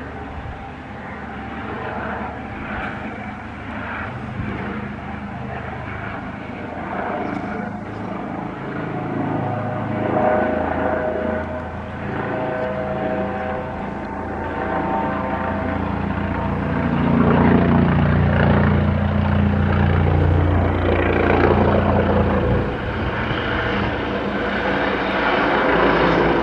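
Eurocopter EC135 police helicopter flying overhead, the steady beat of its rotor and the whine of its twin turbines. The sound grows louder as it comes closer and is loudest about two-thirds of the way through.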